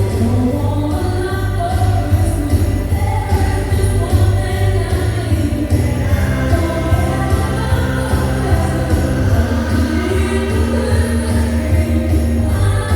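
Christmas-style music with jingle bells, a steady heavy bass line and singing.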